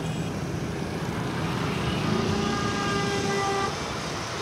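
Street traffic noise, with a vehicle horn sounding one long steady note about two seconds in, lasting about a second and a half.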